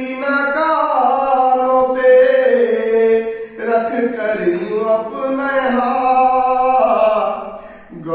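A man chanting a nauha, a Shia mourning elegy, solo in long held notes that bend in pitch. There is a short break about three and a half seconds in and another near the end.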